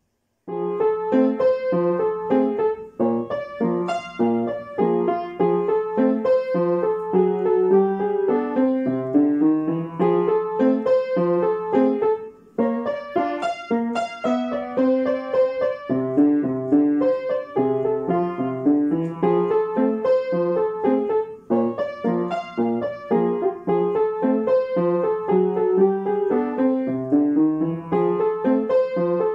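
Upright piano playing a little ragtime piece, with a steady bouncing bass under a syncopated melody; the playing begins about half a second in.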